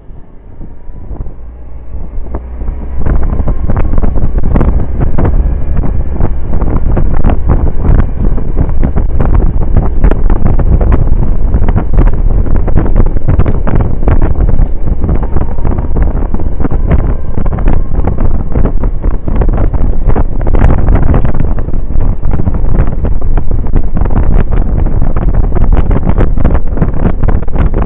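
Heavy wind rush and buffeting on the microphone of a camera on a Suzuki Burgman 650 maxi-scooter riding at road speed. It jumps much louder about three seconds in as the scooter speeds up.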